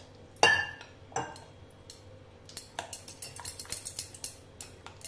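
Spoon stirring thick batter in a glass bowl and clinking against the glass. There is one loud ringing clink about half a second in, another a second later, then a run of quick taps in the second half.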